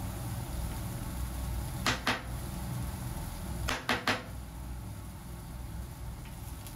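Spice shaker shaken over a pan of frying vegetables: two sharp taps about 2 seconds in, then three more about 4 seconds in, over a low steady hum.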